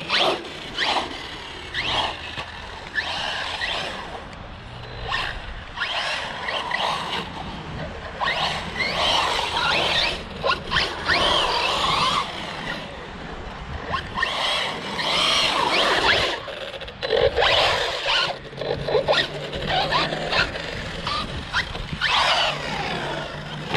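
Electric RC car driven in short bursts on concrete: its motor whines up and down in pitch with each throttle punch, and the tires squeal and scrape on the slippery surface.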